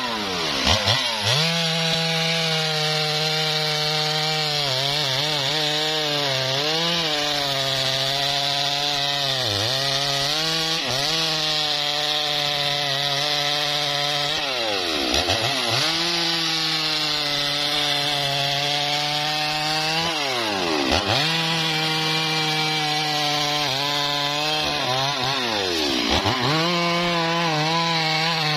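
Stihl two-stroke chainsaw cutting into a felled mahogany log, running at high revs under load. Its engine speed drops and climbs back several times as the cut is eased off and re-entered.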